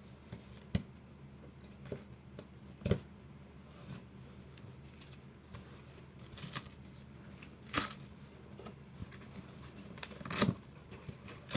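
Cardboard box and packaging being opened by hand: irregular rustling, tearing and scraping with a few sharper clicks and knocks.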